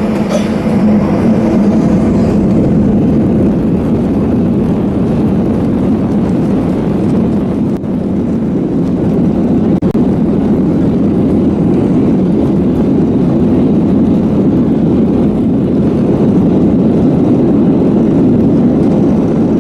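Airliner engines and airflow heard from inside the cabin during takeoff: a loud, steady rumble.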